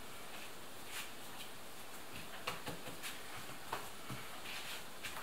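Light, scattered taps and clicks of hands working dough and kitchenware on the table, about half a dozen over a steady background hiss.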